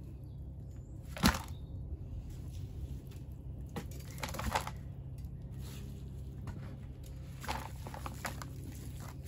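Gloved hands drop handfuls of compost into a flexible plastic tub and work it around. There is a sharp knock about a second in, then two short spells of crunching and rustling.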